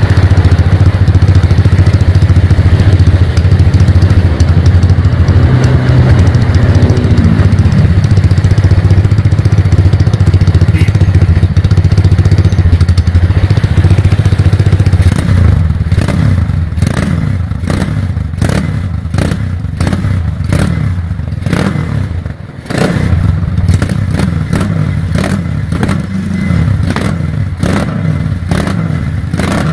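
Honda C50 with a swapped-in 200cc Honda Tiger single-cylinder four-stroke engine and a free-flow 'pispot' exhaust, running with a deep, steady exhaust note. About halfway through, the steady note gives way to a choppy series of sharp blips and cracks that carries on to the end.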